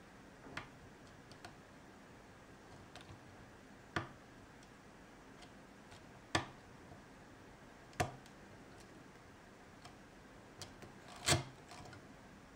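A lock pick working the pins inside an ASSA oval pin-tumbler cylinder held under tension: several sharp metallic clicks a couple of seconds apart, with fainter ticks between them and the loudest click near the end.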